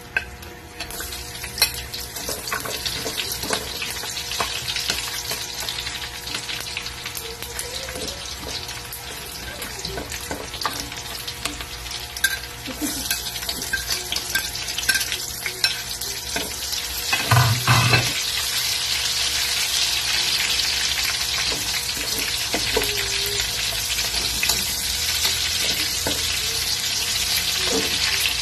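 Chopped onion sizzling in hot oil in a steel wok, with the clicks and scrapes of a metal spatula stirring against the pan. A louder clatter comes about two-thirds of the way through, and the sizzle is louder and steadier after it.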